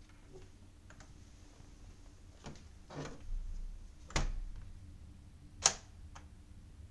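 Plastic cat flap being pushed through by a cat: a short rattle and rustle, then a sharp clack as the flap swings shut, followed by another sharp click about a second and a half later.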